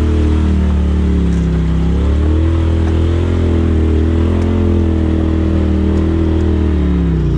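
Polaris RZR Turbo S side-by-side's turbocharged twin-cylinder engine running at low speed, pulling slowly uphill, heard from the driver's seat. Its pitch dips briefly about two seconds in and falls near the end as the machine slows.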